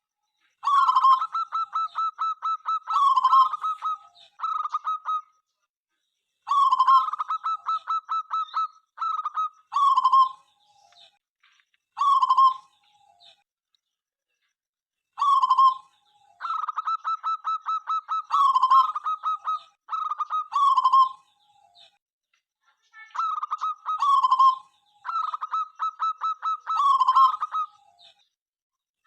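Zebra dove (perkutut) cooing in repeated song phrases: each phrase a quick run of short clipped notes followed by a few longer coos, with pauses of a second or more between phrases.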